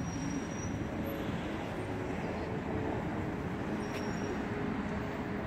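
Steady low rumble of background road traffic, with a faint engine hum running through it.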